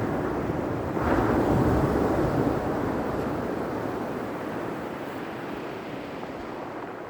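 Ocean surf: a wave breaks about a second in, then slowly fades as it washes out.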